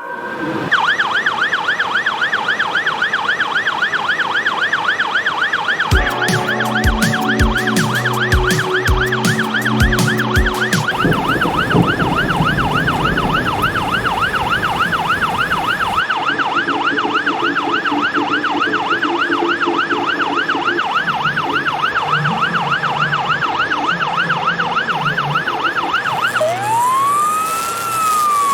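Ambulance siren in a rapid yelp, its pitch warbling fast up and down, with a low pulsing horn-like tone underneath for several seconds about a quarter of the way in. Near the end the siren changes to a slow wail that rises and then falls.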